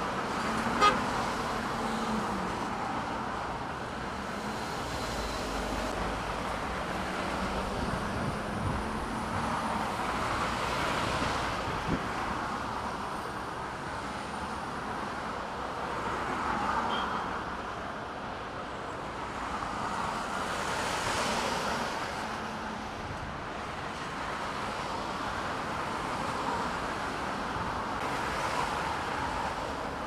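City road traffic: cars passing close by on a multi-lane road, rising and fading every few seconds as each goes by, with a sharp click about a second in.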